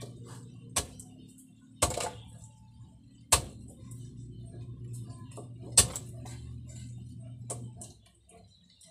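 Large knife chopping through grouper on a wooden chopping block: five sharp knocks at uneven intervals, the loudest about six seconds in. A steady low hum runs underneath and stops near the end.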